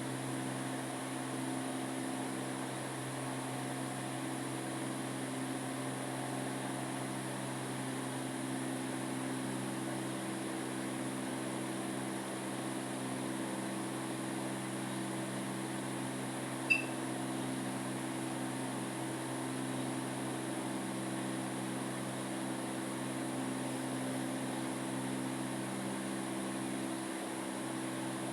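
Steady, unchanging machine hum with several fixed low tones, with one brief high-pitched blip about seventeen seconds in.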